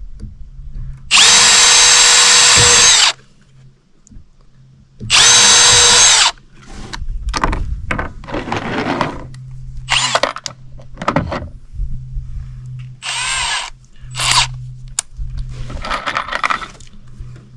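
Power drill driving screws into wooden deck boards. It makes two long, loud runs of steady whine, then several shorter bursts.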